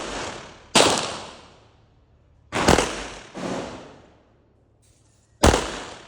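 Four gunshots fired one at a time, each followed by a long echoing tail. The third is fainter and comes shortly after the second.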